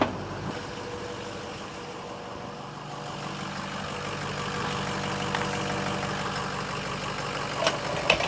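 Ford 6.0L Power Stroke V8 turbodiesel idling steadily, running smoothly now that its crank-no-start fault is fixed. A couple of light knocks come near the end.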